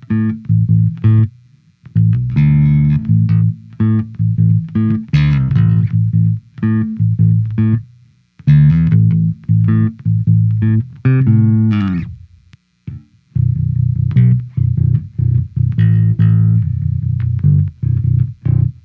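Spector 5-string electric bass playing a plucked riff through a simulated Gallien-Krueger 800 bass amp in the BIAS amp-modelling software, with a hardware compressor in the chain. The notes break off briefly a few times, and a falling slide comes just before the last pause.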